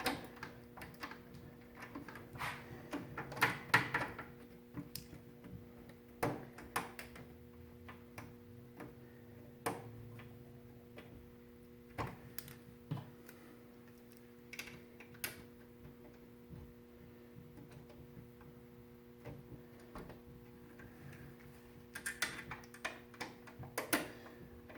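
Scattered light clicks and taps of screws and a screwdriver working at a graphics card's bracket in a PC case, over a steady low hum.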